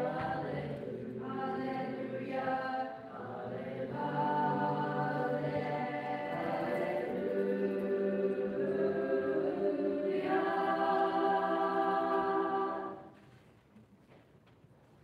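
School choir of boys and girls singing a cappella, ending on a held chord that stops about two seconds before the end.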